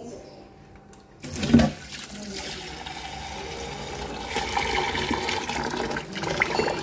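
Tap water running into a small steel saucepan in a stainless-steel sink, rinsing it out. It comes on suddenly with a loud splash about a second and a half in, then runs steadily as the pan fills.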